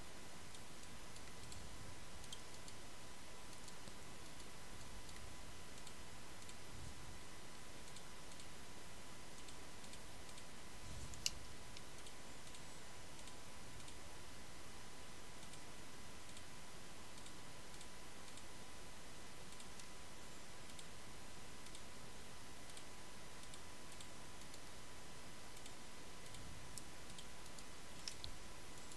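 Scattered, irregular clicks of a computer mouse and keyboard, over a faint steady hiss with a thin steady tone.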